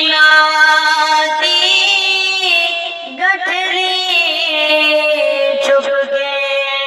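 A young man's high voice singing a naat unaccompanied, holding long drawn-out notes. About three seconds in, one note ends and a new phrase begins with wavering ornaments.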